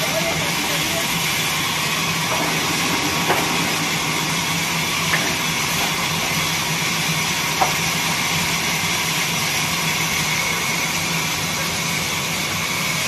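Horizontal band sawmill running: a steady hiss from the band blade over a low, even hum from the drive, with a few faint ticks scattered through.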